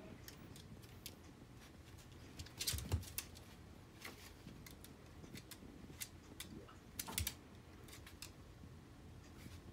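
Claws of a Pembroke Welsh corgi puppy and a long-haired dog clicking and scrabbling on a hardwood floor as the two play, with louder bumps and knocks about three seconds in and again about seven seconds in.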